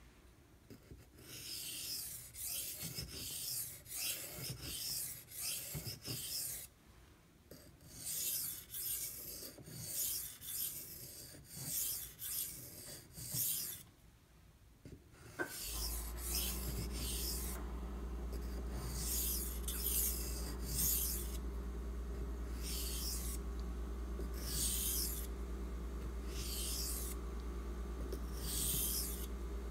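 Knife blade stroked back and forth across a wet Imanishi waterstone worked with a slurry: a run of short, rhythmic scraping hisses, quick in the first half and more spaced later, with two brief pauses. About halfway through, a steady low hum switches on and runs underneath the strokes.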